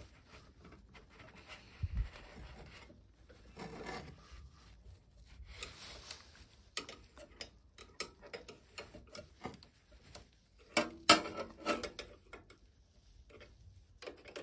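A spanner undoing the 13 mm belt-tension nut inside the back of a bench lathe, slackening the drive belt. First metal scraping and rubbing, then a run of sharp metallic clicks and clinks, loudest about eleven seconds in.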